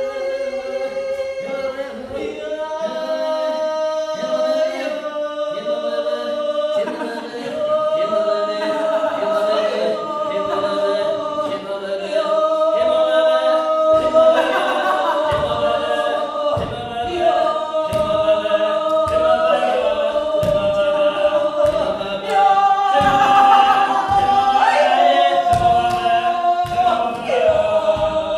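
Choral music: several voices holding long, slowly shifting notes together, with low pulses joining in about halfway.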